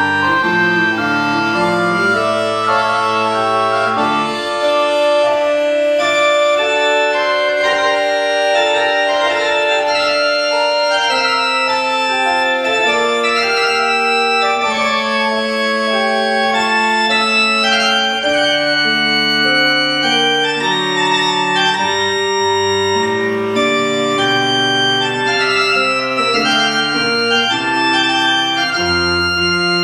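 Beckerath pipe organ playing on its reed stops, Trompette and Cromorne answering each other in dialogue across two keyboards, with many sustained and moving notes. The low bass notes drop out about four seconds in and return a little past the middle.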